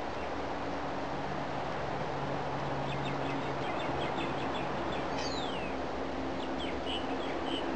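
Birds chirping in short runs of high calls, with one falling whistled note about five seconds in, over a steady rushing background noise.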